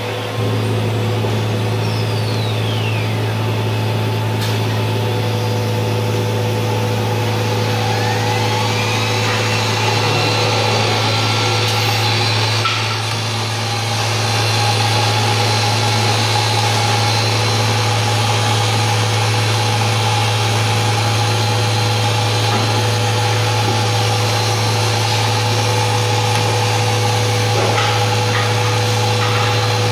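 YL-15302R CNC woodworking router running with a steady low hum. A high spindle whine falls away in the first few seconds, then climbs again about eight seconds in and holds steady to the end.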